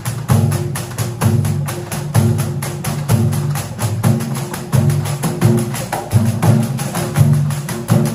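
Layered Brazilian percussion: pandeiros with jangling jingles struck in a fast, steady rhythm over hand drums that pound out repeating deep tones.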